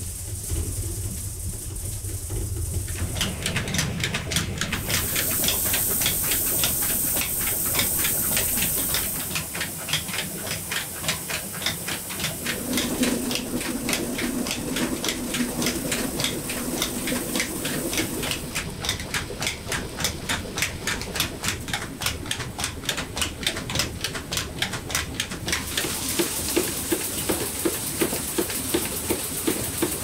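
Rice milling machinery running, a low hum at first, then from about three seconds in a steady hiss of grain with a rhythmic clatter of about three or four knocks a second.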